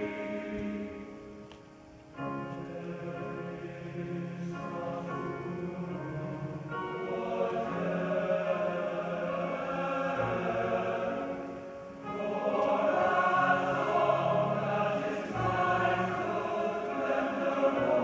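Men's choir singing held chords. The sound fades briefly about two seconds in, then a new phrase begins and builds, growing louder about twelve seconds in.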